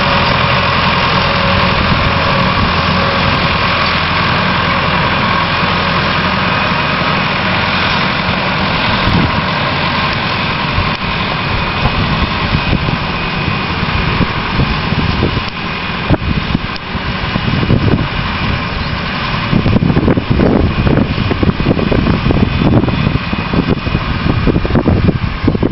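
Massey Ferguson 1080 tractor's diesel engine running steadily under load while pulling a plough. In the second half the engine grows fainter and gusts of wind buffet the microphone.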